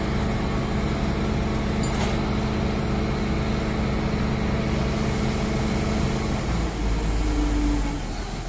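A vehicle engine running steadily at idle. About six and a half seconds in its note changes and a deeper rumble takes over for about a second.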